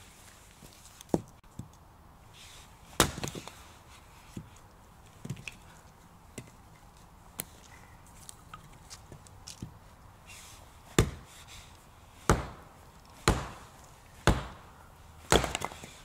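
Hatchet chopping short firewood logs: sharp wooden chops, one strong blow about three seconds in, then a run of five blows about a second apart near the end, with lighter knocks of wood between.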